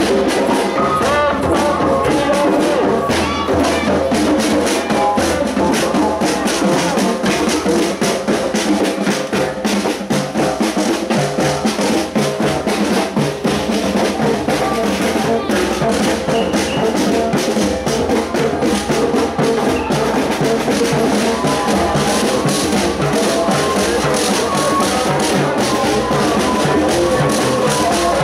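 Drums carried and beaten by marchers, playing a steady beat along with music. Voices mix in.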